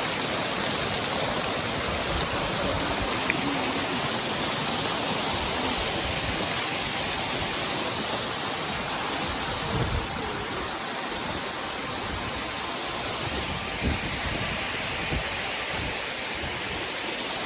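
Waterfall rushing steadily, with a few faint low thumps.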